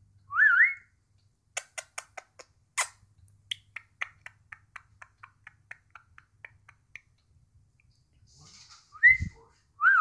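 Pet budgerigar vocalising: a sharp whistled rising note, then a run of about fifteen short clicking chirps, two or three a second and growing fainter, and two more whistled notes near the end. A low bump comes just before the last whistles.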